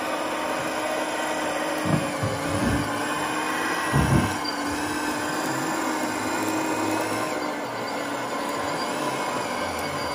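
Hydraulic pump of a radio-controlled Liebherr 926 model excavator whining steadily while the arm and bucket dig. Low thumps about 2 and 4 seconds in.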